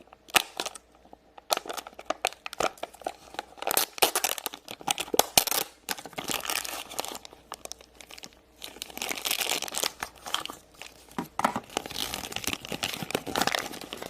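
Plastic toy packaging being unwrapped: irregular crinkling and rustling with short tearing rips.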